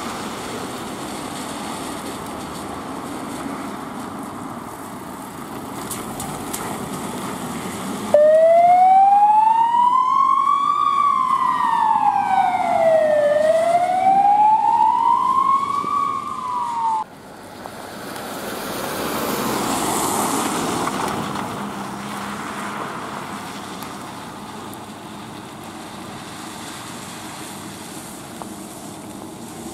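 Fire service emergency vehicle's siren wailing, sweeping slowly up and down about twice before cutting off suddenly. Before and after it, a steady hiss of tyres on a wet road, with a vehicle passing.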